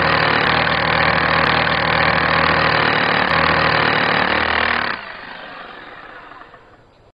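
Power drill running steadily as it drives a helical wall tie into masonry, then fading out from about five seconds in.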